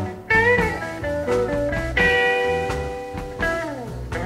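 Live blues-rock band playing an instrumental passage: an electric lead guitar bends notes and holds one long note about two seconds in, over bass and drums.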